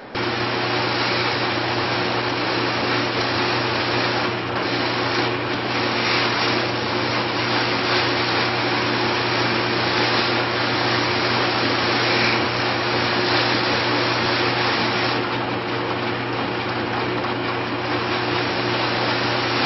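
A drill press running at its highest speed, spinning a sanding mop made of sandpaper flaps, as a piece of wood is held against it to smooth tear-out in a cut contour. It is a steady motor hum under the hiss of the flaps, and the rasp swells and fades a few times as the wood is worked against the mop.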